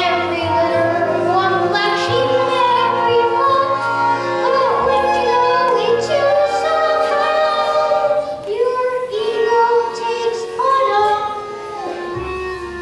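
Children's voices singing a show tune over instrumental accompaniment, with long held notes and a steady bass line beneath.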